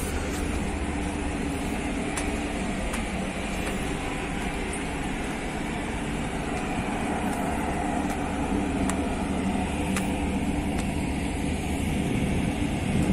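Steady low drone of a car ferry's engines, with a few faint clicks.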